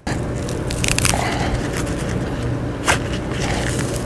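Nylon install straps rubbing and scraping against a steel piston as they are pulled to work a heavy seal energizer into its groove: a steady rasping, with a sharp click about three seconds in.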